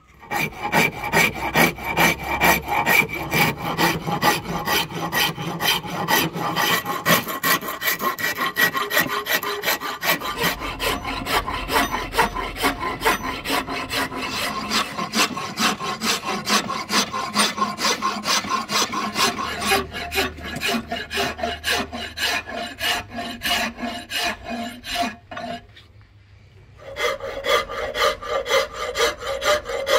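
Hand file rasping across a palm wood axe handle blank in steady back-and-forth strokes, about two a second, shaping the handle. The strokes pause briefly near the end, then start again.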